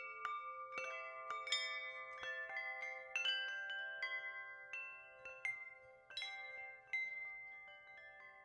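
Gentle background music of chime-like bell notes, struck one or two at a time and left ringing so that they overlap and fade slowly.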